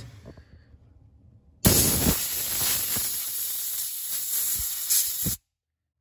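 Can of compressed air sprayed through its straw nozzle into a corroded OBD2 diagnostic port to blow it out. It gives a steady hiss that starts about a second and a half in, lasts nearly four seconds, and stops abruptly.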